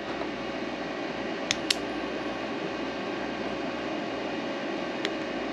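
Steady fan-like whirring hiss, with two light clicks close together about a second and a half in and another near the end.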